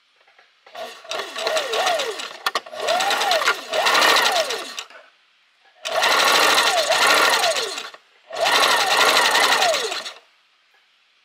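Electric sewing machine stitching through fabric in three runs of a few seconds each, with short pauses between. The motor's whine rises and falls in pitch as the speed changes.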